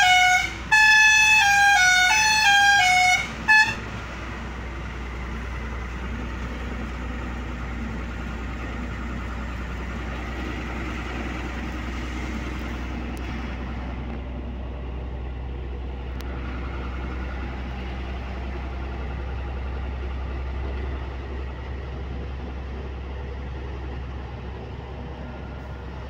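Truck musical horn playing a short descending tune twice, then stopping about three and a half seconds in. After that comes the steady drone of the Tata dumper truck's engine and road noise inside the cab while driving.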